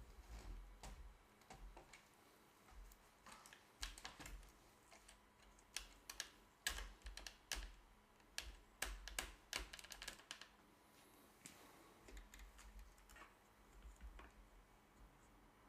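Irregular light clicks and taps, most of them in the first ten seconds, fewer and fainter near the end, over near silence.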